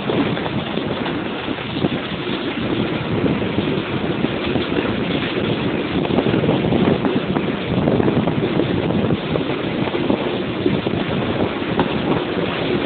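Passenger train pulling out and gathering speed, heard from an open window of a coach: the train's steady running noise mixed with wind rushing over the microphone, a little louder from about five seconds in.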